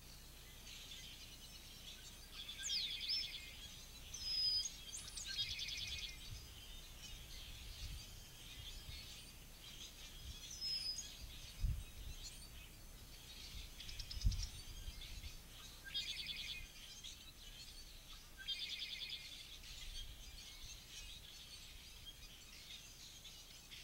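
Several songbirds singing in a dawn chorus: repeated buzzy trills about a second long and high rising whistled notes, coming and going. Two dull low thumps sound near the middle.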